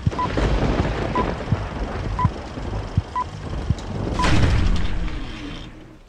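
Old film countdown leader sound effect: a short beep about once a second over crackling, rumbling projector-style film noise. After the last beep, about four seconds in, the noise swells to its loudest and then fades away.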